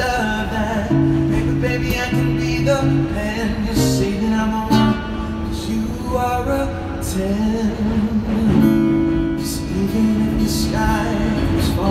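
A man sings and strums an acoustic guitar, his voice carried through a microphone on a stand.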